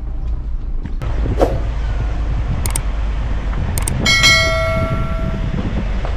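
Subscribe-button animation sound effect: two pairs of sharp mouse-style clicks, then a bright bell chime that rings out and fades over about a second and a half. A steady low rumble runs underneath.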